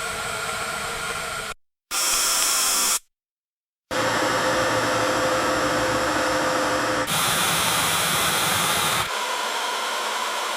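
Grain dryer fan running: a steady rush of air with a hum, in several short takes that switch abruptly from one to the next, with two brief gaps of silence in the first four seconds.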